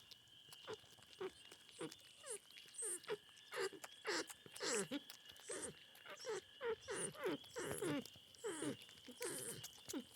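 Porcupine vocalizing: a long run of short whining calls, about two a second, each sliding down in pitch.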